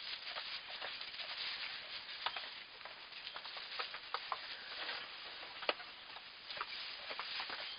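Dry straw bedding rustling and crackling, with irregular small clicks, as newborn goat kids step about in it.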